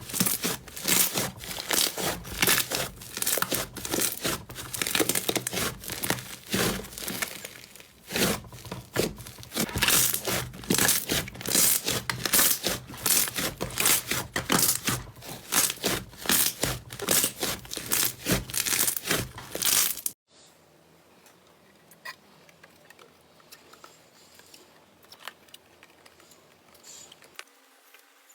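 Slime being squeezed and stretched by hand, giving a dense run of crackling, popping clicks. About 20 seconds in it cuts off abruptly, leaving only a few faint clicks.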